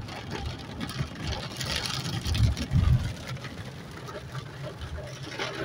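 Inside a moving car on a rain-soaked road: steady road and rain noise over a low engine rumble, swelling louder for a moment between two and three seconds in.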